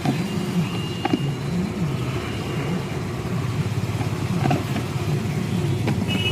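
A motor vehicle engine running, its pitch rising and falling again and again as it is revved, with a few sharp clicks from parts being fitted.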